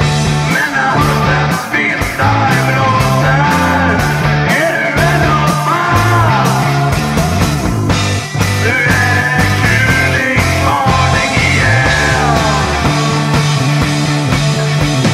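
Background rock music with a steady drum beat, a stepping bass line and a wavering lead melody.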